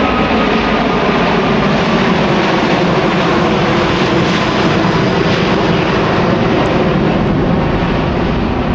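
Jet engine noise from an Airbus A380-800's four turbofans at takeoff power: a loud, steady rumbling rush with no breaks.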